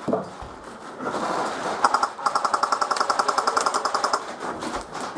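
Airsoft rifle firing on full auto: a rapid, even rattle of shots lasting about two seconds, starting about two seconds in, after a quieter stretch of similar rattling.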